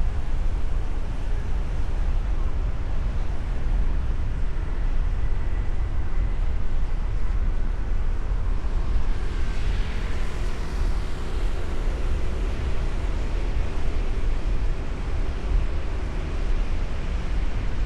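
City street traffic: a steady low rumble of engines and road noise, with a vehicle passing close about ten seconds in.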